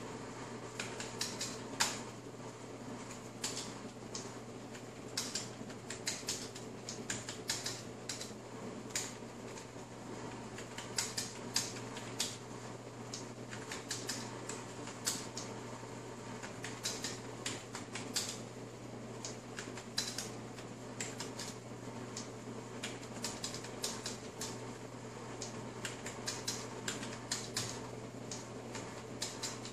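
Fast, irregular typing on a Lenovo computer keyboard: a steady stream of key clicks with no pauses, over a steady low hum.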